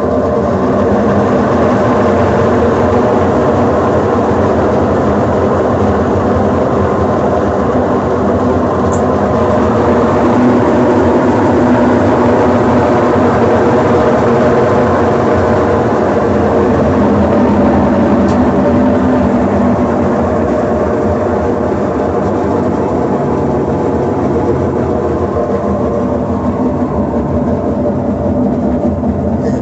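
Consul Facilite CWG11 washing machine in its spin cycle, the drum spinning with a very loud, steady drone and hum. The noise comes from worn drum bearings that need replacing.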